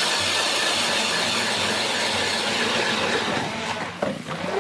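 Power ice auger drilling into lake ice: a steady motor whir with the grinding hiss of the blades cutting ice, dipping briefly about four seconds in.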